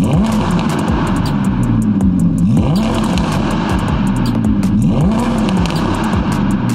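Audi R8 V10 Plus's 5.2-litre V10 through a Capristo aftermarket exhaust, revved while standing: three throttle blips, each rising sharply and then falling slowly back toward idle.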